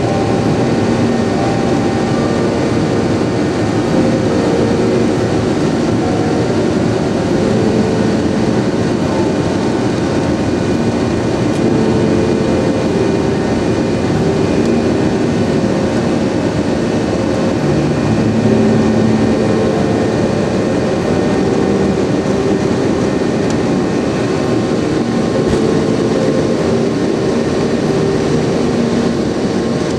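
Steady, loud vehicle noise in motion, a constant rumble with faint tones that shift now and then.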